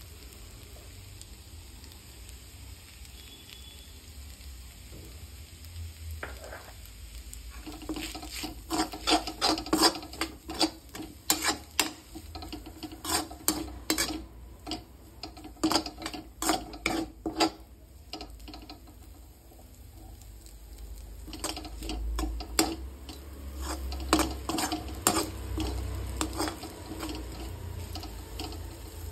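A slotted steel spatula scraping and tossing noodles in a steel wok in quick repeated strokes, over a faint sizzle of frying. The stirring starts several seconds in and stops briefly in the middle before going on.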